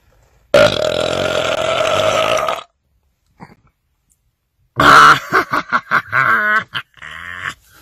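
A man belching loudly: one long belch of about two seconds, then after a pause a rapid, choppy string of short belch pulses, with one more brief belch near the end.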